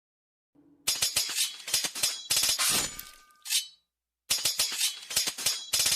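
Glass-shattering sound effect: two clusters of sharp cracks and clinking shards, starting about a second in and again past four seconds, with a rushing swell of noise between them.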